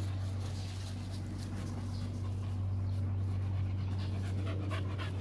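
Four-month-old Rottweiler puppy panting close by, quick rhythmic breaths that come out most plainly near the end, over a steady low hum.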